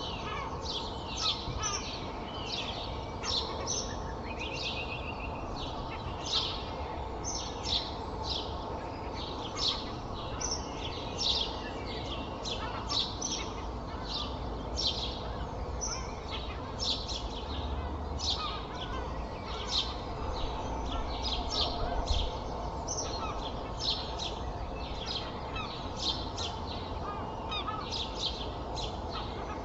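Dawn chorus of songbirds: many short, high chirps and song phrases repeating all through, over a steady low rumble of traffic.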